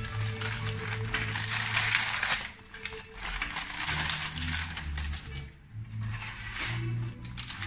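Baking paper crinkling and rustling as it is folded and tucked over a glass baking dish, in stretches broken by brief lulls, over background music with low bass notes.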